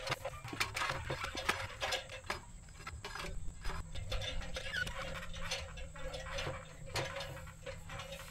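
Scattered light clicks, taps and knocks at an irregular pace, over a low steady hum.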